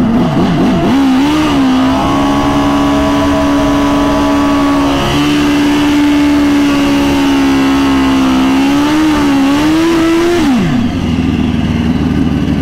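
Turbocharged Suzuki GSX-R1000 inline-four drag bike engine held at a steady high rpm before launch. Near the end the note falls away sharply to a lower, rougher running sound.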